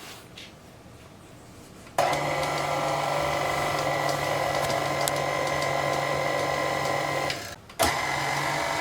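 Electric stand mixer's motor switched on about two seconds in, running at a steady speed with a constant hum and whine as it mixes flour into cookie dough. It cuts out for a moment near the end and starts again.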